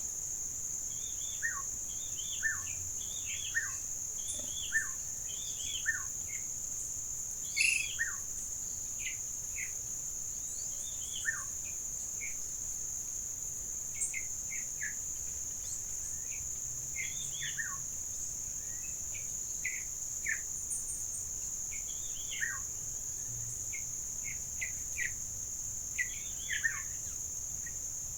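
Wild birds chirping and calling with many short, quick descending notes, some in rapid runs, over a continuous high-pitched insect buzz.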